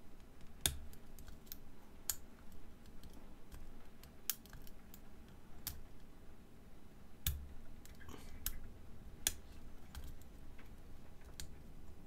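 A lock pick single-pin picking the five-pin core of a Master Lock Commercial padlock under a tension wrench: faint, irregular metallic clicks as the pick lifts and sets the pins.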